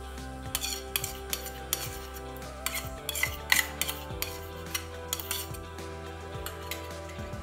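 Steel spoon scraping and clinking against a small steel bowl, knocking soaked semolina out into flour in a larger steel bowl. The clinks come irregularly, several a second at times.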